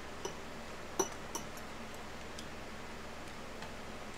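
Cutlery clinking against a dinner plate: a few short sharp clicks, the loudest about a second in, then fainter ticks.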